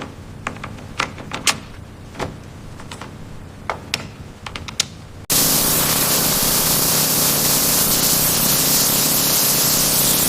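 Scattered sharp metallic clicks and taps of hand-tool work on a motorcycle, then, about halfway through, a loud, steady hiss of high-pressure spray starts suddenly and keeps going.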